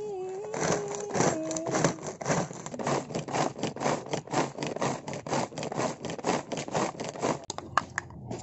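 Hand-operated mini food chopper with a plastic bowl, its blades spinning through chillies in a fast run of strokes, several a second. The strokes stop near the end, followed by a few lighter clicks and scrapes. Background music plays faintly under the first two seconds.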